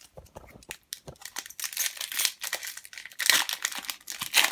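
Foil Pokémon booster pack wrapper crinkling and tearing as it is opened, in irregular rustling bursts.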